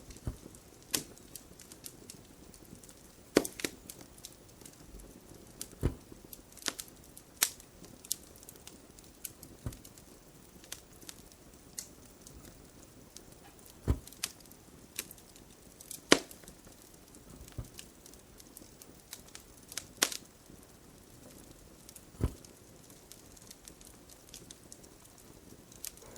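Wood fire crackling, with irregular sharp pops and snaps every half second to two seconds over a faint steady hiss.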